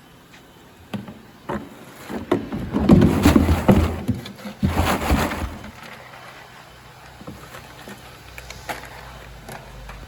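Anzai LEO-300D5 colour sorting machine running with a steady low hum. Irregular loud rustling and clattering, loudest from about two to five and a half seconds in, lies over it, then dies back to the hum.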